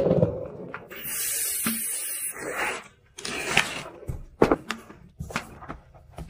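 Kitchen handling sounds: a hiss for about a second and a half starting about a second in, then a string of short knocks and taps of pots, lids and utensils.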